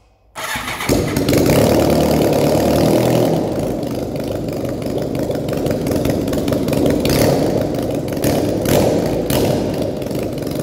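BMW K100 RS 4-valve's inline-four engine started with its exhaust system removed, so it runs straight out of the open exhaust ports. A brief crank, then it catches about a second in and idles, very loud ("tremendo") and unsilenced, without being revved.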